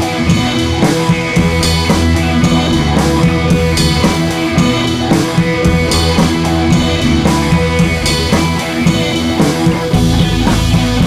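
Background rock music with electric guitar and drums, the bass growing heavier near the end.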